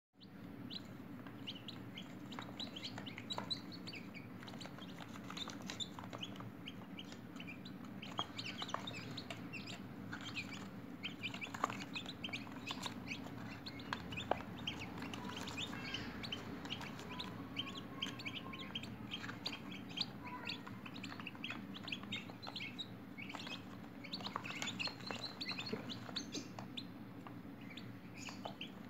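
A group of newly hatched domestic chicken chicks peeping continuously, many short high chirps overlapping one another, over a low steady hum.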